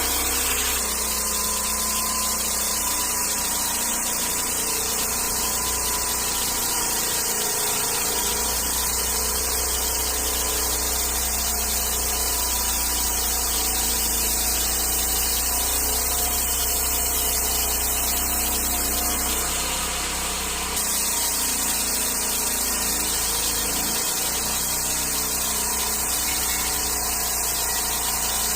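Small gasoline engine of a portable sawmill running steadily, with a strong high hiss and a faint steady whine over it. The level dips slightly about twenty seconds in.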